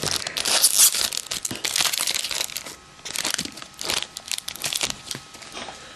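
Shiny trading-card pack wrapper crinkling as it is handled and opened. It is loudest in the first second, then comes in several short bursts.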